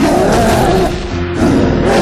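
Dramatic background music with heavy accented hits, one at the start and another about a second and a half later.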